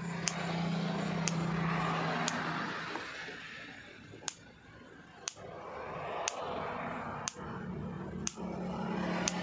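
Benaka Fencing Model No-01 electric fence energizer firing its high-voltage pulses: a sharp tick about once a second, with a low hum that fades a few seconds in and comes back near the end.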